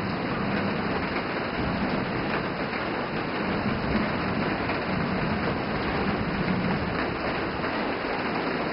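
Steady rain from a rainstorm, an even, unbroken hiss.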